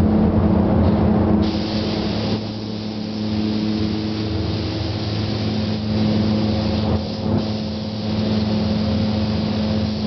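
Paint spray gun hissing in bursts as clear coat is sprayed, over a steady mechanical hum.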